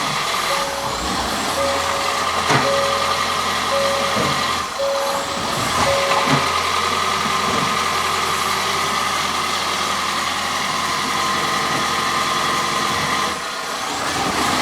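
2018 Hyundai Ioniq Hybrid moving slowly on a test drive after a driveshaft replacement, with a steady whine. A short warning beep repeats about every half second for the first six seconds, and there are a few faint knocks.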